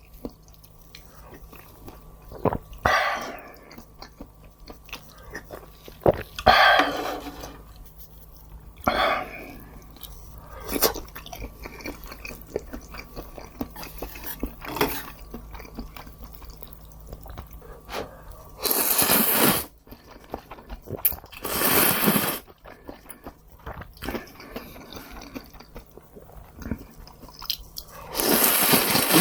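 Close-miked eating: a person biting and chewing food with crunching, in separate mouthfuls, the loudest noisy bursts about a second long coming twice past the middle and again near the end.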